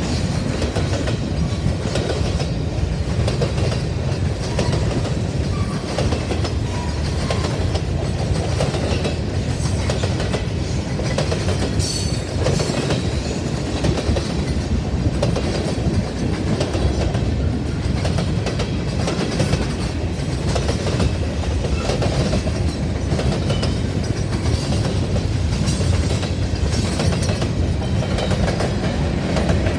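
Freight train of grain hopper cars rolling past, a steady rumble with the wheels clicking rhythmically over the rail joints.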